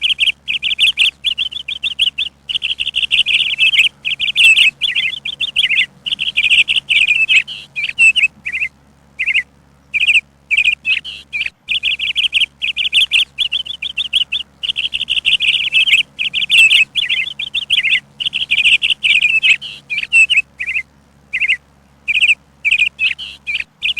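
Bird chirping: rapid high twittering phrases, one after another with short gaps between them.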